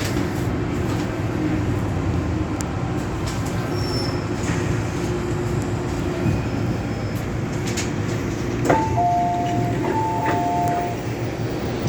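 Steady running rumble and hum of an MTR Metro-Cammell M-Train heard from inside the carriage while it travels between stations. Near the end a two-note electronic chime sounds twice.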